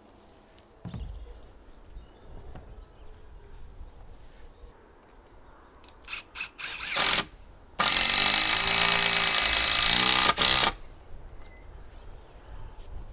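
Handheld power tool, a drill or driver, working into the shelter's wall logs: a few short trigger bursts, then one loud run of about three seconds whose motor pitch wavers under load before it stops abruptly. A dull thump sounds about a second in.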